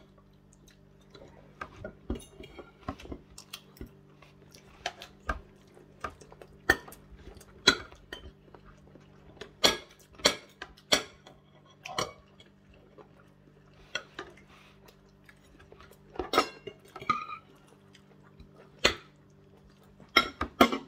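Eating at the table: a fork tapping and scraping on a ceramic dinner plate in scattered sharp clicks, about one a second, over a steady low hum.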